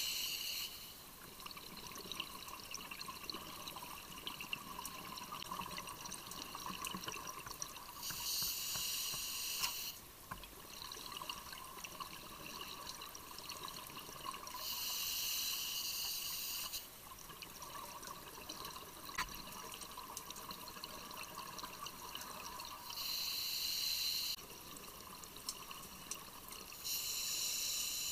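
Underwater scuba breathing: the diver's regulator exhaling rushes of bubbles about every six to eight seconds, each lasting a couple of seconds, with a faint steady tone between breaths.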